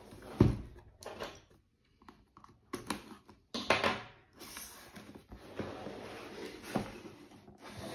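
Cardboard graphics-card box being handled and opened: a knock about half a second in as it is set against the desk, then cardboard rustling, rubbing and scraping as the box is turned over and worked open.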